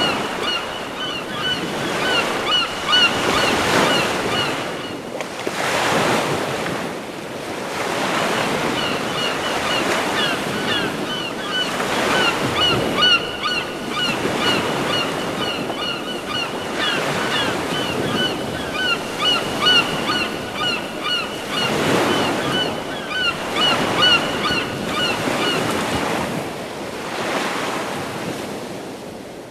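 Samsung Galaxy S III nature-sound ringtone: surf swelling and breaking every few seconds under a steady stream of chirping bird calls, fading out near the end.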